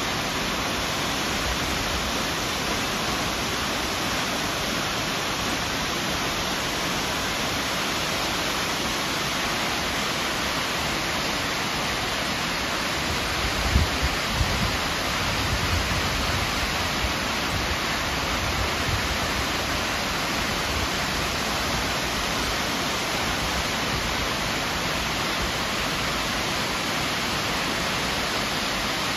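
Waterfall in full flow pouring over a rock cliff into a rocky pool: a steady, even roar of falling water. A few low thumps come briefly about halfway through.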